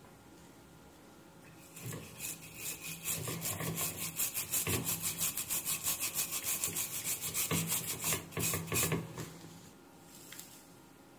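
Rapid back-and-forth scrubbing of something white across a printed circuit board, about six even strokes a second. It starts about two seconds in and stops near nine seconds.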